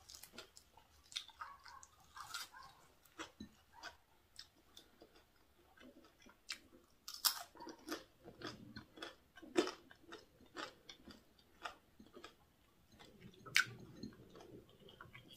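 A person chewing crispy deep-fried squid, a string of irregular sharp crunches with softer mouth sounds between them.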